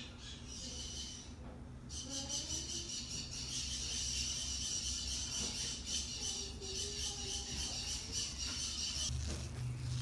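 A flock of parrots chattering and calling in the background, a dense high-pitched din that sets in about two seconds in.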